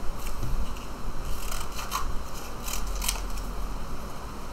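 Scissors snipping through a paper plate, a few cuts in two short runs.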